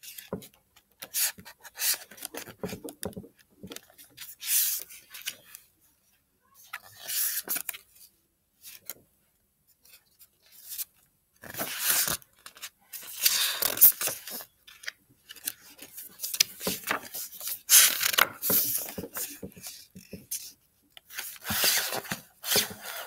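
Pages of a thick picture book being flipped quickly by hand: a run of short paper swishes and rustles with brief pauses between.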